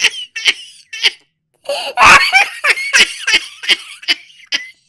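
A person laughing: a couple of short laughs, a brief pause, then a longer run of quick, breathy laughs that is loudest near the start and stops shortly before the end.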